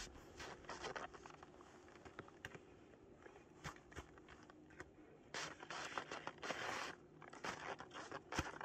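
Ski boots and skis crunching and scraping in packed snow in short irregular strokes, with a longer rough scrape about five seconds in, as a skier works a boot into a ski binding on a slope.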